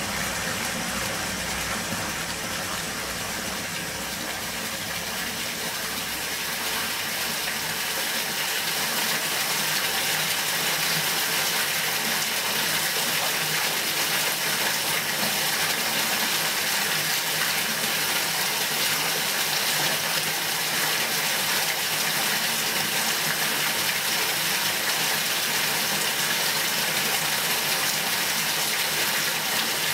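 Water rushing steadily into or through a bathtub, a continuous gushing hiss that grows a little louder about eight seconds in.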